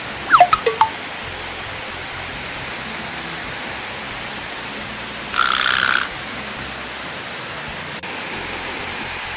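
Steady rushing of a waterfall. A few quick falling plops sound near the start, and a brief louder hiss comes about five seconds in.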